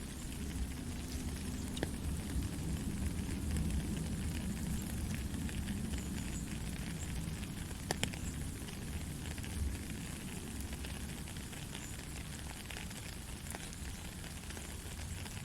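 Steady soft rain, a dense patter of drops with scattered sharper drip clicks, one louder about halfway through.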